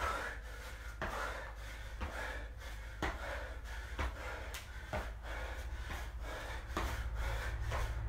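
A man breathing hard through a high-intensity exercise, with sneaker footfalls and scuffs on a concrete floor about once a second, a little quicker near the end, over a steady low hum.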